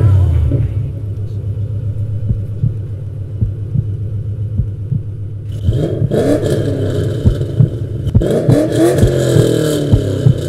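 Ford Mustang V8 exhaust with a deep, lumpy idle and frequent sharp pops, settling from a loud burst at the start. It is revved up and back down about six seconds in and again about two seconds later.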